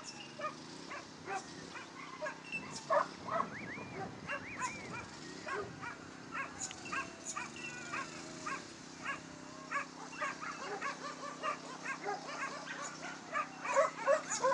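Dogs barking and yipping repeatedly in short, sharp, high calls at an irregular pace, with a wavering whine partway through.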